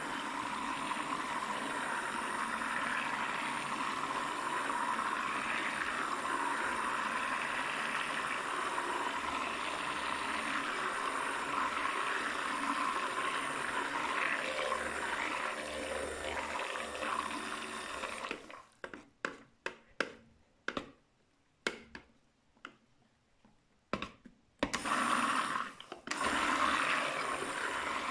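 Stick blender whirring through thickening soap batter (oils with a goat-milk lye solution), blending it toward a thick trace for hot-process soap. About two-thirds of the way through it stops, with only a few short bursts of running, then runs steadily again near the end.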